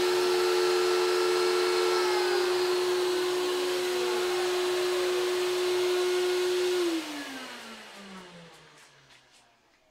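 A shop vacuum and the Shapeoko CNC router's spindle running together with a steady whine. One motor is switched off about two seconds in and winds down. The other is switched off about seven seconds in and spins down, its whine falling steadily in pitch and fading away near the end, with a few faint ticks as it stops.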